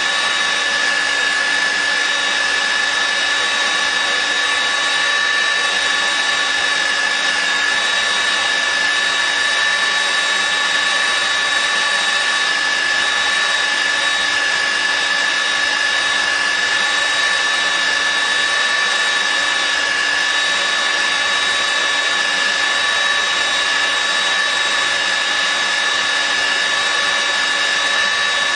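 Heavy-duty steel-drilling machine running steadily: an unchanging high motor whine over an even hiss.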